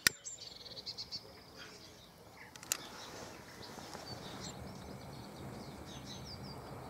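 Small birds chirping throughout. A sharp click at the very start and another about two and a half seconds in from a long-nosed gas lighter held to a paper bag, then the steady low noise of paper and cardboard burning.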